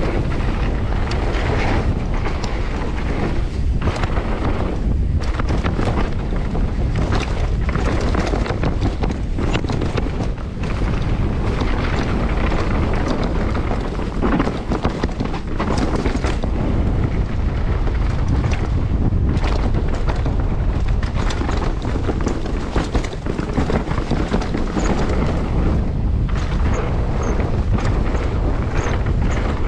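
Downhill mountain bike ridden fast down a dirt trail: wind buffeting the microphone, with the tyres rumbling over the ground and frequent knocks and rattles from the bike.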